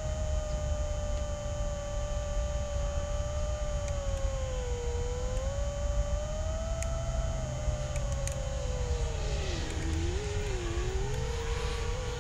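A 5-inch FPV quadcopter's brushless motors and propellers whining in flight, the pitch rising and falling with throttle, dipping and wobbling about ten seconds in and then holding steady. Low wind rumble sits underneath.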